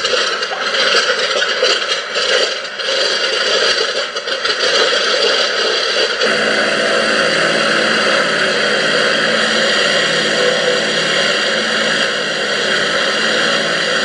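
Simulated aircraft piston-engine sound from a model's sound card, played through wing-mounted speakers. It runs unevenly at first, then settles into a steady idle about six seconds in.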